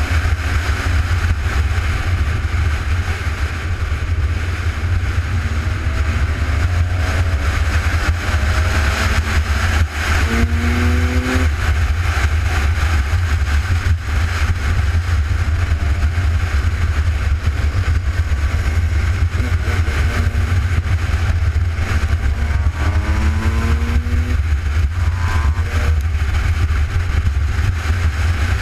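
Off-road vehicle engines revving, their pitch rising in two spells about six seconds and twenty-two seconds in, over a steady low rumble.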